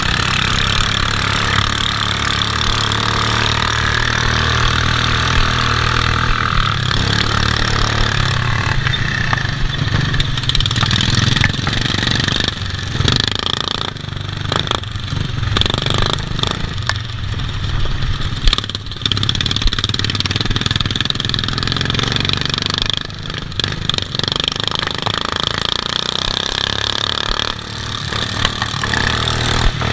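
Racing garden-tractor lawn mower's engine running hard at racing speed, heard close from on board, its note rising and falling with the throttle. Scattered knocks and rattles as the mower bounces over the rough grass track, and brief drops in engine level late on as it backs off for corners.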